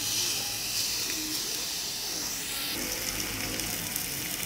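Fish fillets sizzling in a hot oiled grill pan just after being flipped, a steady hiss that drops sharply in level a little over halfway through.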